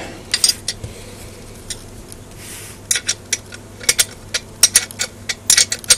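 Metal spanner clinking and clicking on the bolts of an Emotator rotator's cast housing as they are nipped up: irregular sharp ticks, a few at first and coming thicker about halfway through.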